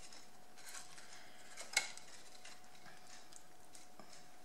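Faint rustling of cardstock being handled and folded, with one sharp click about two seconds in.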